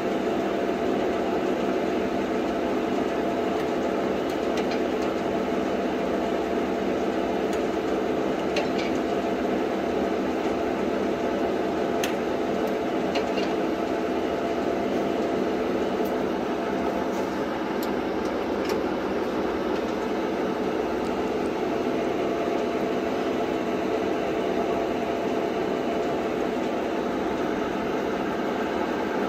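LeBlond gap-bed engine lathe running under power: a steady mechanical drone from the motor and headstock gearing, with a few faint ticks.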